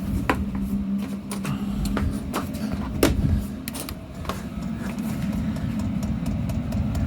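5 kW Chinese diesel air heater running and ramping up, a steady fan and combustion rumble, with its fuel dosing pump ticking sharply about every half second.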